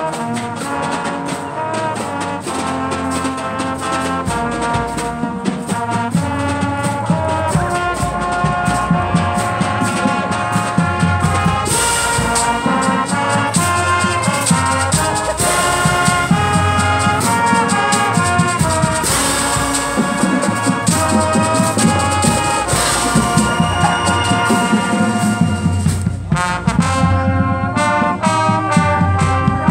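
High school marching band playing a brass-led piece outdoors, trumpets and trombones over drums and percussion, with a fuller low end from about six seconds in.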